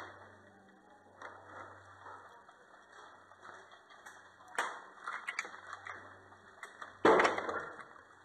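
Movement and gear-handling noise, scuffs and rustles, with a sharp knock a little before five seconds in and a louder knock about seven seconds in that dies away over about a second.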